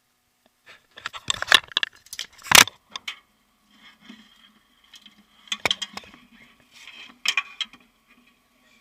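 Handling noise from a camera being moved among dive gear: bursts of clicks, knocks and metallic rattles, in three clusters, with a faint steady hum beneath from a few seconds in.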